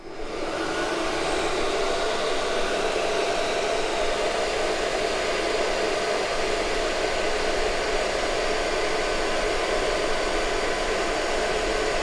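VEVOR diesel heater's main air blower fan, set to 70% speed, spinning up over the first second and then running steadily: a strong rush of air with a faint steady whine. The burner is not lit; only the fan is running.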